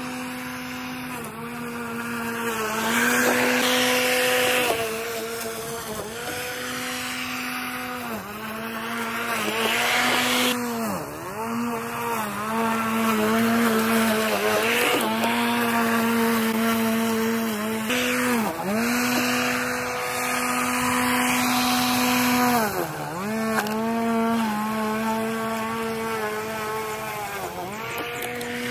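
Litheli 40V cordless brushless electric lawn mower cutting very tall, overgrown grass: a steady motor hum whose pitch sags briefly and recovers again and again as the blade takes on the thick grass, with a rushing noise of cutting over it at times.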